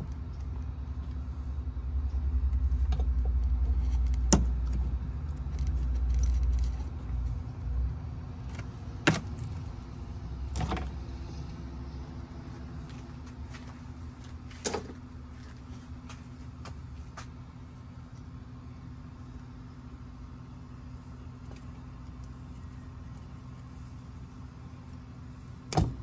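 Small sharp metal clicks and taps as a screwdriver and wire connectors are handled while disconnecting an RV refrigerator's wiring, five distinct clicks spread across the stretch. Under them is a steady low hum, and a low rumble during the first several seconds and again briefly later.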